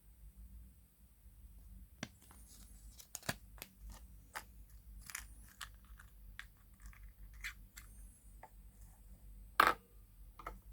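Surprise egg being opened by hand: scattered crinkling, tearing and clicking of wrapper and plastic, with one louder click near the end.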